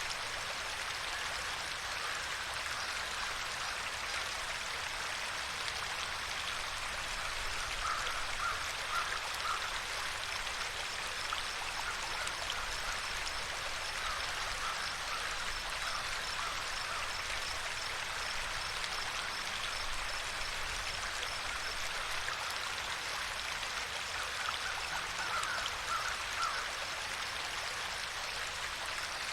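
Water flowing steadily in a stream, an even rushing trickle. Three times, a short run of rapid chirps from a small animal rises above it.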